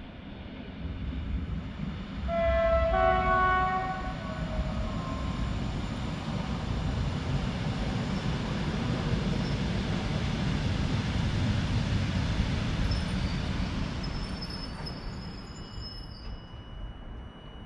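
Passenger train sounding a two-note horn for about a second and a half as it approaches. It then runs past with a steady low rumble of wheels on rail, which swells and then fades.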